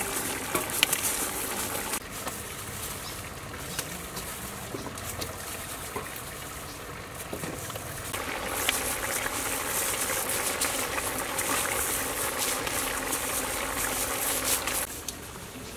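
Chicken and coconut-milk curry at a rolling boil in an aluminium pot, a steady bubbling hiss, with a few light knocks while stuffed bitter gourds go in.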